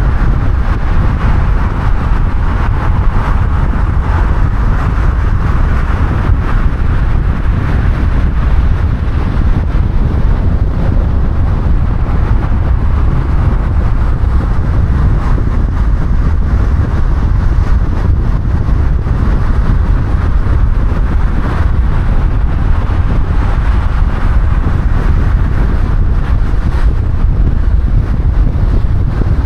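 Steady road and wind noise of a car being driven: a loud low rumble with a hiss of tyres and air above it.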